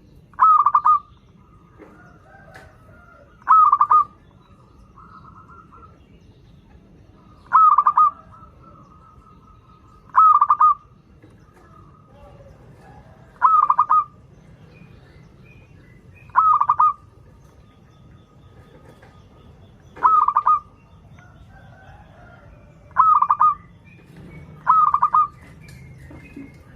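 Zebra dove (perkutut) singing: nine short, loud cooing calls, one about every three seconds, with fainter bird sounds in between.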